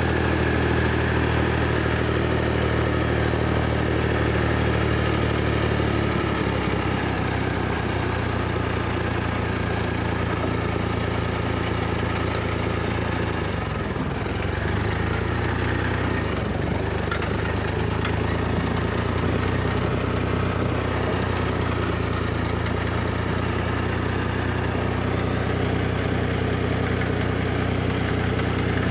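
Massey Ferguson 135 tractor's four-cylinder gasoline engine running steadily under way, its note shifting about six seconds in and again around fourteen seconds. It is running again now that fuel flows from the cleaned-out gas tank, whose clogged outlet had been starving the engine.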